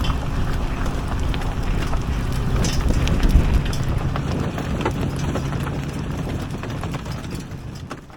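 Wind buffeting the microphone over a low steady hum, fading out near the end.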